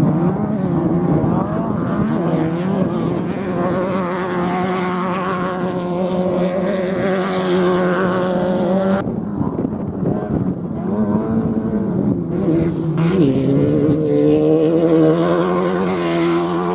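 Off-road race vehicle engines running loud and steady, their pitch rising slowly in the first half. About nine seconds in, the sound changes abruptly, and near the end the engine note climbs as a vehicle accelerates.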